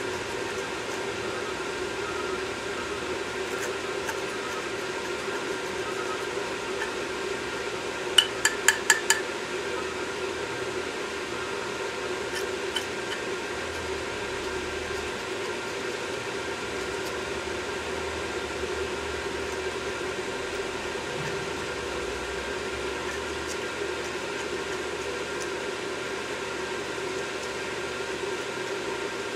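A small metal pick working carbon out of the ports of a removed EGR valve: a quick run of about five sharp metallic taps about eight seconds in and one more tap a few seconds later, over a steady background hum.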